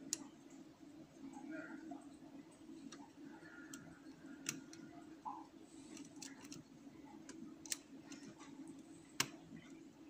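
Lock pick and tension wrench working in a euro cylinder lock: scattered faint metallic ticks and clicks of the pick on the pins, with four sharper clicks, over a steady low hum.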